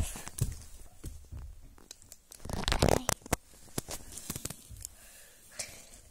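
Rustling and crinkling as plush toys and their packaging are grabbed and moved about, with scattered soft knocks; the loudest rustle comes about two and a half to three seconds in.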